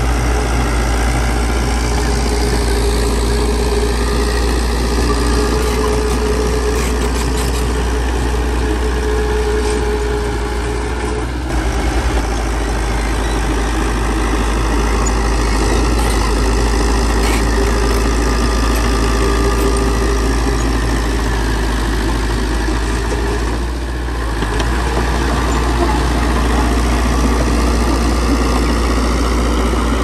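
Komatsu D31P crawler bulldozer's diesel engine running steadily, with two brief dips in level, about a third of the way in and again past two-thirds.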